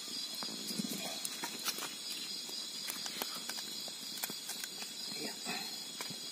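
A machete blade prying open a fire-charred bamboo cooking tube, making many sharp cracks and clicks as the bamboo splits lengthwise. A steady high insect chorus runs underneath.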